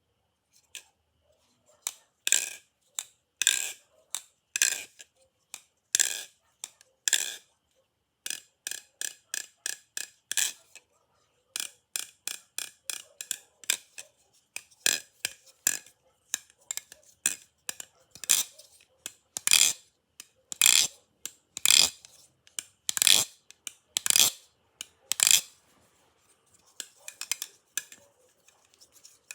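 Butterfly knife (balisong) being flipped, its handles clacking sharply: single loud clacks about a second apart, then quick runs of lighter clicks, with loud clacks coming back later.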